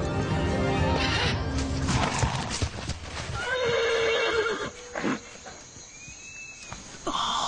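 Horse galloping hard through undergrowth, a rush of hoofbeats, followed about three and a half seconds in by a long wavering neigh; dramatic score runs underneath.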